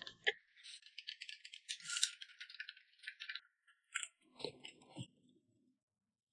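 Faint eating sounds at a table: small crackly clicks and scrapes of a spoon in a glass cup of corn porridge, with a few sharper clicks and a soft rustle about four to five seconds in.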